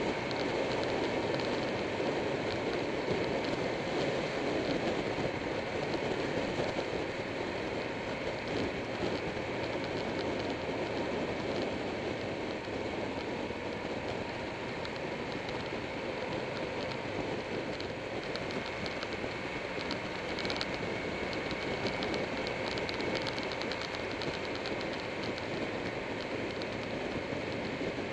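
Steady wind rush and road noise from a motorcycle riding along at speed, heard through a camera mounted on the bike.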